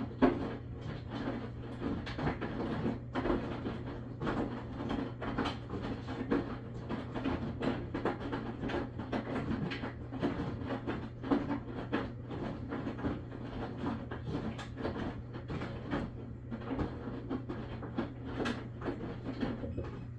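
Maytag washing machine running: a steady low motor hum under irregular knocking and clattering from the drum.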